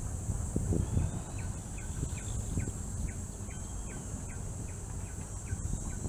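Wind rumbling on the microphone while cycling, over a steady high-pitched insect drone, with short chirping notes repeating every fraction of a second.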